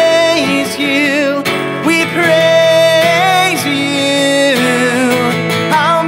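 A man singing long held notes with vibrato, accompanying himself on a strummed acoustic guitar.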